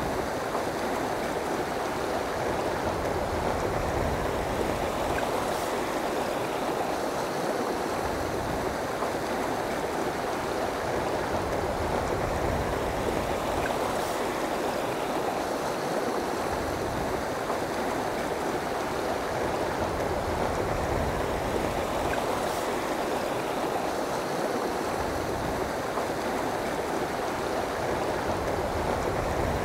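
Steady rush of a fast, rocky river, water running over riffles and around boulders, unbroken and even in level.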